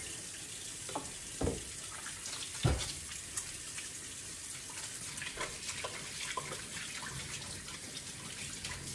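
Kitchen tap running into a stainless-steel sink while hands are washed with soap, with a few soft knocks in the first three seconds.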